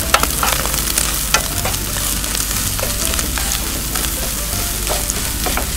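Shredded cabbage, carrot and onion stir-frying in hot oil in a frying pan, sizzling steadily while a wooden spatula stirs through them, with frequent sharp clicks of the spatula against the pan.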